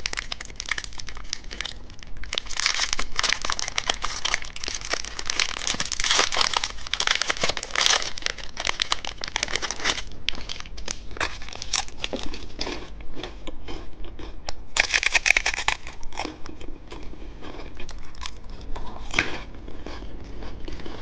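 Foil and plastic wrapping on a small umbrella-shaped chocolate being crinkled and torn open by hand, with a steady stream of irregular crackles and rustles.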